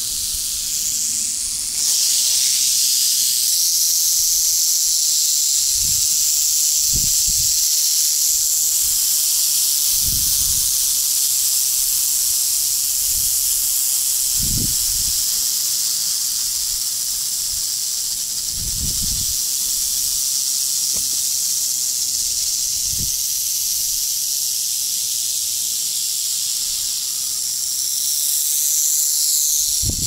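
Several rattlesnakes in a den rattling together, a loud, steady high buzz that grows louder about two seconds in. Brief low thumps come through now and then.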